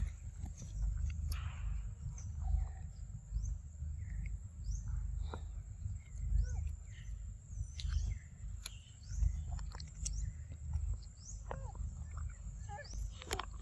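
Macaque eating ripe fruit close up: scattered wet chewing and smacking clicks, with small birds chirping in the background over a steady low rumble.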